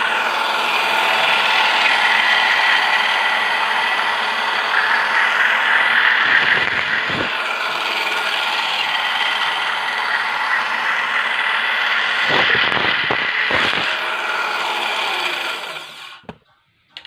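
Electric cloth cutting machine running steadily as it cuts through cotton fabric, with a few short knocks along the way; it stops about a second before the end.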